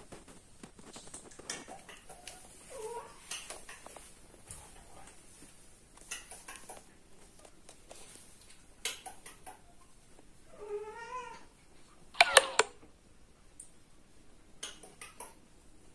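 Cats mating: a cat yowls, with a short cry early on, a longer wavering yowl about two-thirds through, then a brief loud shriek just after it. Faint rustling and clicks of fur and handling run underneath.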